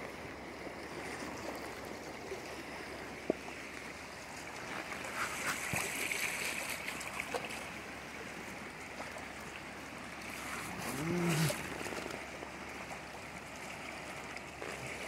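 Steady wash of shallow water, with louder sloshing and splashing around five to seven seconds in as the water is stirred. A short low hum-like sound comes about eleven seconds in.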